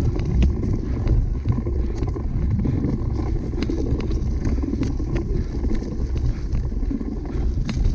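Wind buffeting the microphone of a camera on a cyclocross bike being raced, a steady low rumble, with scattered clicks and rattles from the bike running over rough ground.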